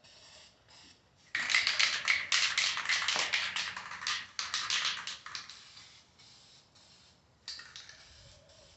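Aerosol can of plastic adhesion promoter being shaken hard, its mixing ball rattling in a fast run of clicks for about four seconds, then a short, quieter spray hiss near the end.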